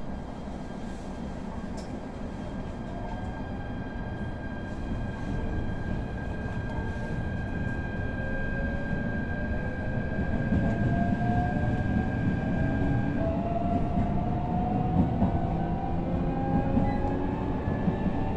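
Electric multiple-unit train pulling away from a station and accelerating: the traction motors' whine climbs steadily in pitch over the rumble of the running gear, which slowly grows louder. A few sharper knocks come from the wheels in the last few seconds.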